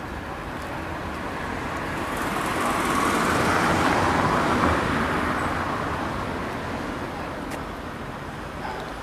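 A car driving past: its road noise swells to a peak about halfway through and then fades away.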